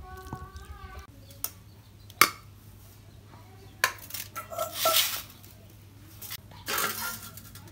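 A metal spoon and stainless steel bowls clinking and scraping: a few sharp single clinks, the loudest about two seconds in, then two longer stretches of scraping clatter in the second half.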